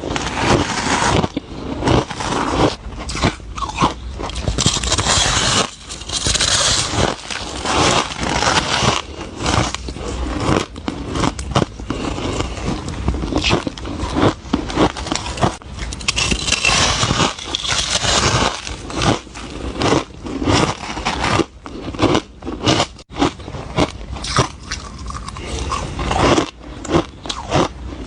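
Soft, powdery ice being bitten and chewed, one crunchy bite after another with short pauses between them.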